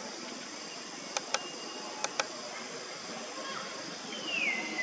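Outdoor ambience with a steady insect buzz. Four sharp clicks come in two quick pairs, and near the end a single whistle-like call slides down in pitch and then holds.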